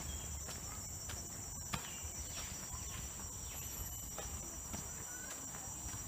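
Forest insects keep up a steady high-pitched drone, with the irregular crunch of footsteps on a dirt trail and a few short chirps.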